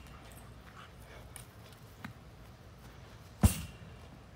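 A lacrosse ball smacks into a pitch-back rebounder net once, sharply, about three and a half seconds in. A fainter knock of ball on stick or frame comes about two seconds in.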